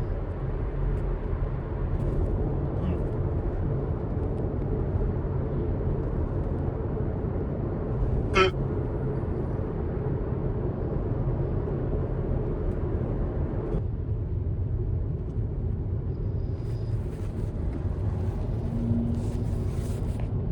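Steady road and engine noise inside a moving car's cabin, with one sharp hiccup from a man about eight seconds in.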